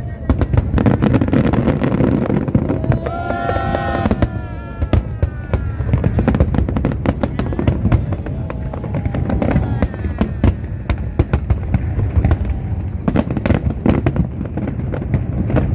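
Fireworks display going off continuously: a rapid, dense run of sharp bangs and crackles over a steady low rumble.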